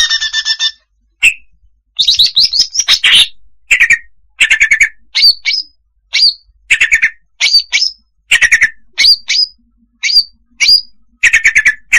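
Female cucak hijau (greater green leafbird) calling, the call used as a trapping lure: a quick run of short phrases, roughly one a second, alternating buzzy rattling chatters with sharp high notes that dip and then rise.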